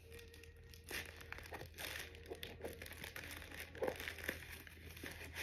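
Scissors cutting open a mailed package, with faint crinkling and rustling of the packaging and irregular short snips and clicks.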